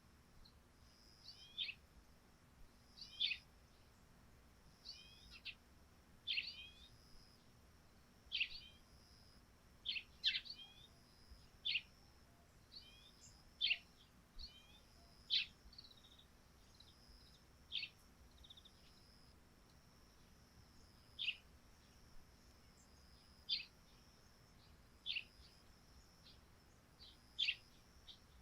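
Eurasian tree sparrows chirping: single short, sharp chirps every second or two, with a faint steady high hiss beneath.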